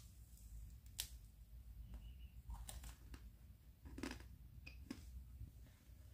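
Crisp meringue crunching as it is bitten and chewed: a handful of short, sharp crackles about a second apart over a faint low hum.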